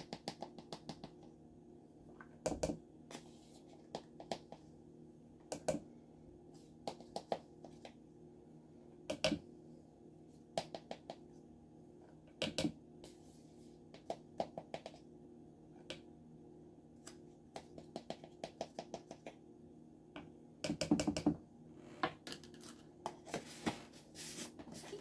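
Measuring spoon scooping cornstarch from a plastic canister and tapping it into a plastic mixing bowl: scattered clicks, scrapes and taps in irregular clusters, busiest about 21 seconds in. A steady low hum runs underneath.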